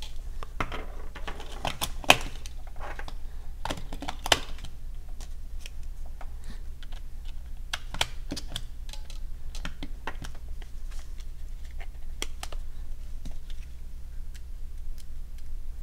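Hands handling a small plastic RC car remote control: scattered clicks and taps of plastic parts being pressed and fitted together, with two louder snaps about two and four seconds in.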